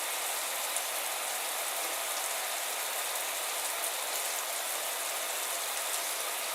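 Water hissing steadily from a handheld shower head with a small internal fan, running on full as a fine spray.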